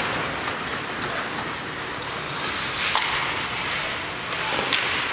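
Ice hockey play on an indoor rink: skate blades scraping and hissing on the ice, with a few short sharp knocks from sticks and puck.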